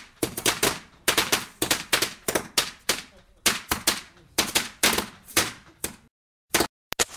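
Firecracker sound effect: a rapid, irregular string of sharp bangs, several a second. It cuts off suddenly about six seconds in, then a few single bangs follow near the end.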